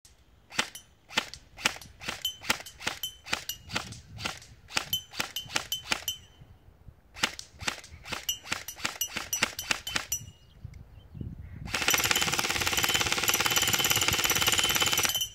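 VFC VR16 Tactical Elite II electric airsoft rifle firing: quick single semi-automatic shots, several a second, with a short pause partway. Near the end comes one loud full-automatic burst of about three and a half seconds.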